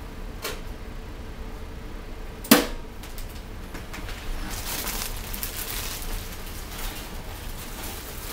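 A toaster oven's metal door shutting with one sharp clack about two and a half seconds in, followed by faint rustling.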